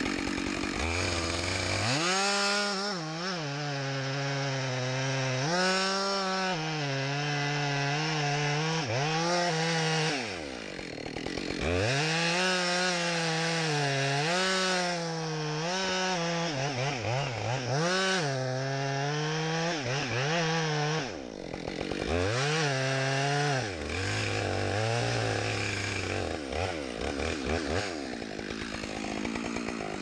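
Husqvarna chainsaw cutting into the base of a standing tree trunk. The engine revs up to full throttle in the cut and drops back several times, idling briefly at the start and again near the end.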